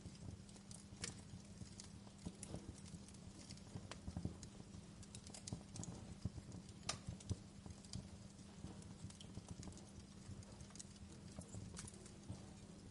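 Wood fire crackling, with irregular pops and snaps over a low rumble, under a steady low hum.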